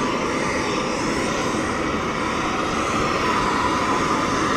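Steady rushing hiss of steam venting from a hot-spring crater, growing slightly louder near the end.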